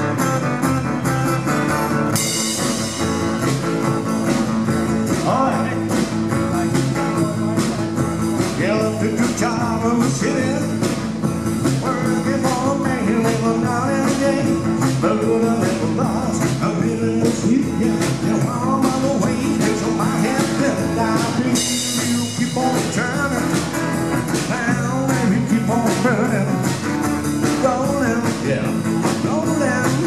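Street busking duo playing country-style rock and roll: strummed acoustic guitar and upright double bass over a steady beat, with singing.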